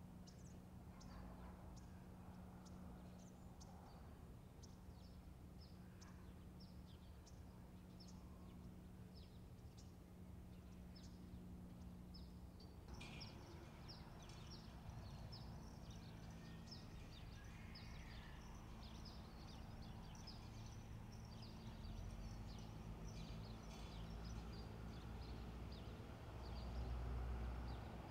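Faint outdoor ambience with small birds chirping over and over, busier from about 13 seconds in, over a low steady hum.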